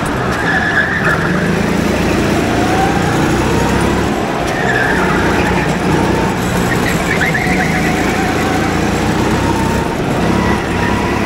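Go-kart engine running with its pitch rising and falling, and short tyre squeals a few times.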